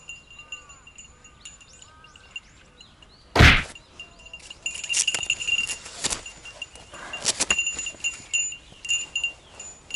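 A small metal bell jingling on and off, in clusters of rings that come thickest in the second half, with one loud thump about three and a half seconds in.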